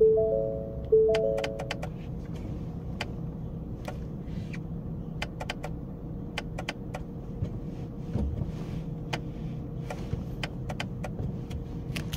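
Ford Ranger warning chime ringing in a two-tone ding pattern about once a second, stopping about two seconds in. A steady low hum and scattered light clicks continue after it.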